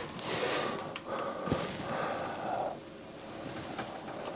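A person's soft breath sounds close to the microphone, with one soft click about a second and a half in.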